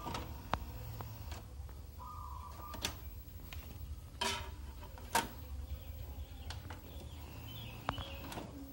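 Disc tray of a Sony BDV-E4100 Blu-ray home theatre opening and closing: brief whirs of the tray motor and a series of clicks and knocks as a disc is handled in the tray, the sharpest knock about five seconds in.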